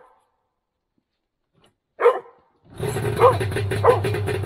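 A dog barks once, then about two-thirds of the way in the Polaris Indy 650's three-cylinder two-stroke engine starts and runs steadily. The dog keeps barking over the engine, twice more.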